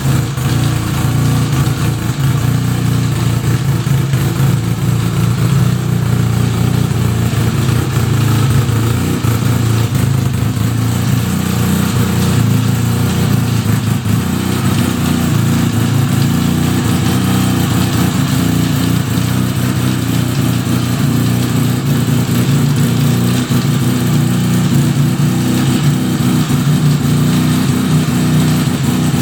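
1975 Suzuki RE5's single-rotor Wankel engine running steadily, with the strange noise that the owner traces to the transmission.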